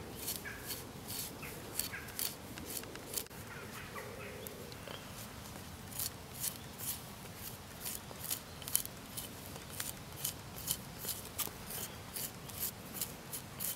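Back of a bushcraft knife scraping the green outer skin off a young bramble stem in light, quick strokes, a short scratch about three times a second.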